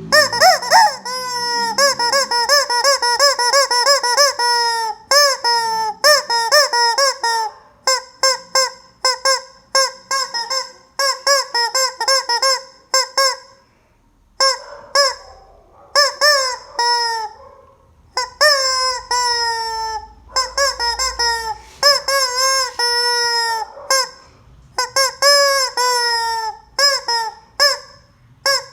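Rubber squeeze-toy chicken squawking over and over: runs of short honking squeaks in quick succession, broken by a few longer squawks that fall in pitch.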